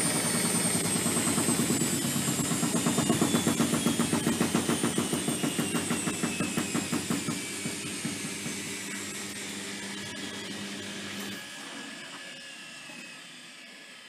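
Zanussi Electrolux 1200 front-loading washing machine winding down from a spin. The motor whine falls in pitch and the drum's rhythmic beat slows and fades. The motor hum cuts out about eleven seconds in, leaving the drum coasting quietly to a stop.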